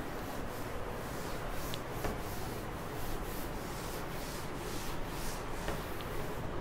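Cloth duster wiping a chalkboard clean: repeated back-and-forth rubbing strokes, about three a second.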